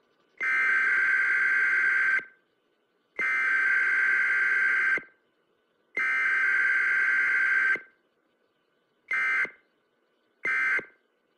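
Emergency Alert System digital data tones: three harsh, buzzy bursts of about two seconds each, then short bursts near the end. This is the burst pattern of an EAS SAME data signal, with the short bursts marking the end of the message.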